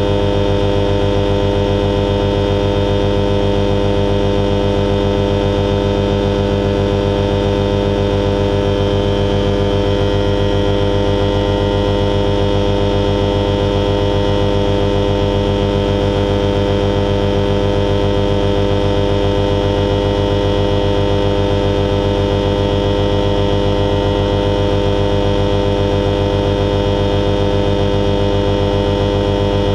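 Alisport Silent-in motorglider's engine and propeller running steadily under power, a constant drone heard from inside the cockpit.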